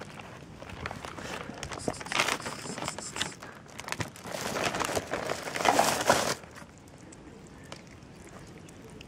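Plastic bag rustling and crinkling in two bursts, about two seconds in and again from four seconds, the second one louder and stopping suddenly.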